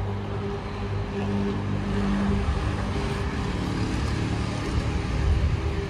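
An engine running steadily somewhere off-picture: a low droning hum over general outdoor background noise.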